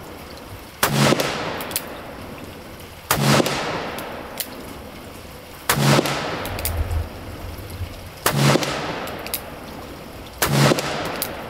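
Black-powder Colt Cattleman revolver with a 5.5-inch barrel, fired five times at an even pace about two and a half seconds apart, on a full 30-grain charge of Swiss 3F black powder. Each shot is a sharp report followed by a long echoing tail.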